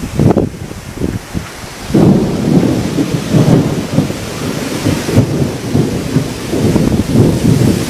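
Strong gusting wind buffeting the microphone, a loud, uneven rumble that gets much louder about two seconds in.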